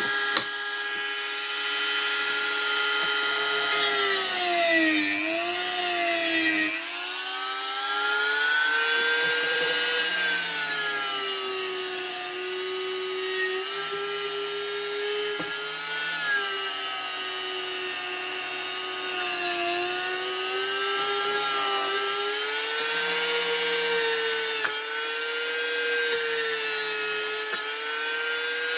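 A high-speed handheld power tool cutting into metal. Its motor whine wavers and sags in pitch as it bites, dipping most about five seconds in, with a steady grinding hiss over it.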